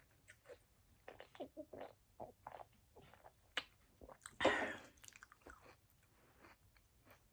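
Close-up chewing of a mouthful of poke (raw fish and sushi rice), with small wet mouth clicks. About halfway through there is a louder, short rushing noise.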